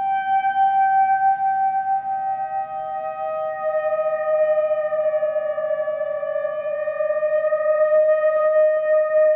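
Theremin playing long, pure held notes that slide slowly down in pitch. A second sustained tone enters about two seconds in and overlaps the first. A rapid flutter of faint clicks joins near the end.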